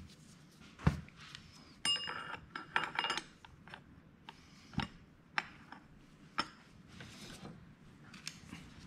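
Metal hand tools and engine parts clinking and tapping on a workbench: scattered sharp clicks, with a cluster of ringing metallic clinks about two to three seconds in.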